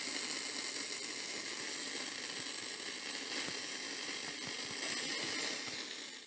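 Old film projector sound effect: a steady hiss and mechanical whir with faint scattered crackles and clicks.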